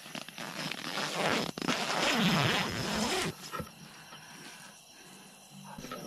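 A burst of rustling noise lasting about three seconds, then dying down to a low background.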